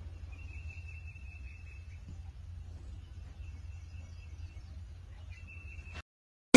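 Quiet barn ambience: a steady low rumble under a thin, high trill that sounds three times, the last one short, then cuts off suddenly about six seconds in.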